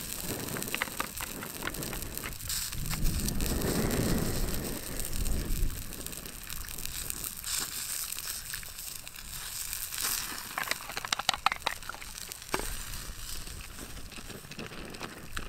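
Food sizzling in a frying pan on a small folding camp stove, with water poured from a bottle into a metal mug and a quick run of light clicks and rattles about ten seconds in.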